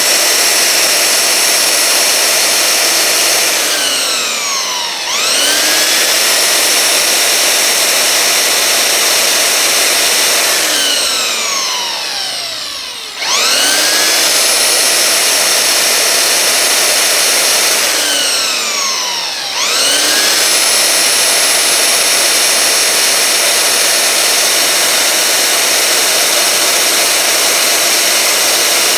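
Makita 9403 4x24 belt sander running with a high motor whine while a wooden stick is sanded on its belt. Three times the motor is switched off and winds down with a falling whine, then restarts with a quick rising whine, running on to the end.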